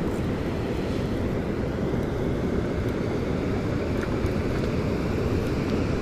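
Wind buffeting the microphone in a steady low rumble, over the rush of fast-flowing river water.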